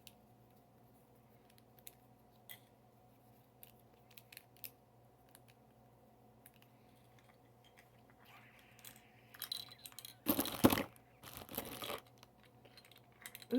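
Small plastic fidget toys giving scattered light clicks and taps as they are handled and hooked together, then a louder spell of crinkling and rustling about ten seconds in.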